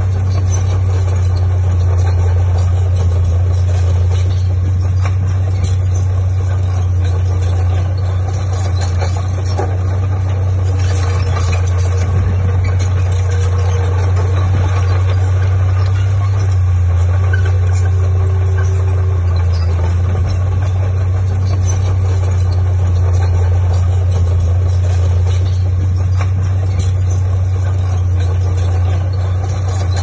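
Diesel engine of heavy earthmoving machinery running steadily, a deep, constant low hum with no change in speed.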